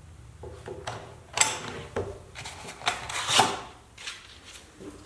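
Sanding belt being worked off a Bosch PBS75AE belt sander by hand: a series of short rubbing and scraping sounds, loudest a little after one second and again at about three and a half seconds.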